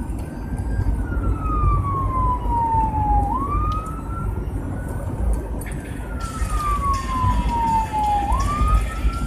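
Fire department vehicle's siren in wail mode, heard from inside the cab. Its pitch climbs quickly and then falls slowly over a couple of seconds, repeating about every five seconds over the low rumble of the engine and road.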